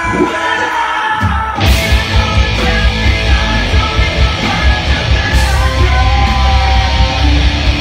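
Live metal band playing at full volume, with distorted guitars, bass and drums and vocals over them. The low end drops away at first, then the full band comes back in about one and a half seconds in.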